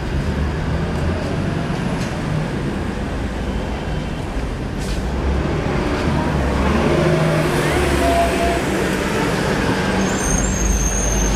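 Busy city street traffic: motor vehicles passing with a steady low rumble, and a few short high-pitched tones near the end.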